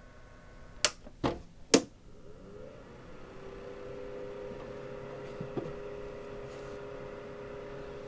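Three clicks of control buttons. A small fan's high whine stops, then the Silentnight dehumidifier's fan spins up with a short rising tone and settles into a steady hum, like a very small fan.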